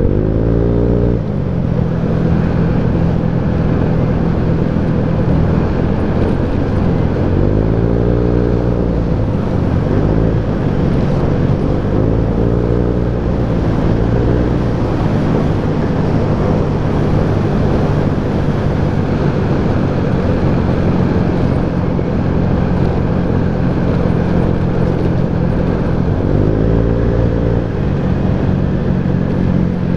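SYM Jet 4 scooter's single-cylinder engine running steadily under way, with wind and road noise rushing over the microphone. Several times the engine pitch swells up and falls back as the throttle is opened and eased.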